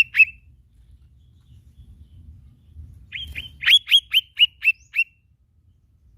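Lesser green leafbird (cucak ijo mini) calling: two sharp notes right at the start, then about three seconds in a quick run of about eight sharp, down-slurred chip notes, about four a second.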